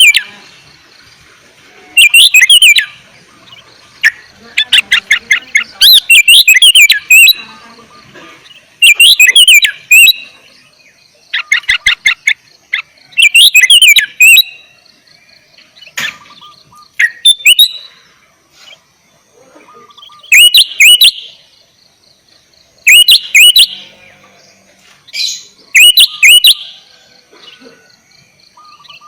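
Sooty-headed bulbul (kutilang) singing persistently: short, bubbling phrases of quick whistled notes, loud and close, repeated every two to three seconds.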